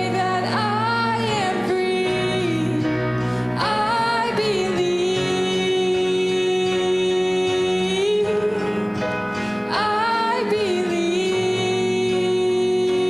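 Church special music: a singer performing a slow hymn over instrumental accompaniment, with long held notes and vibrato, and new phrases beginning about four seconds and ten seconds in.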